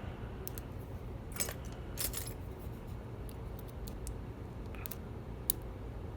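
Faint metallic ticks and short scrapes of a thin pick working the pins of a Goal D9 dimple lock under tension, with one sharper click about five and a half seconds in.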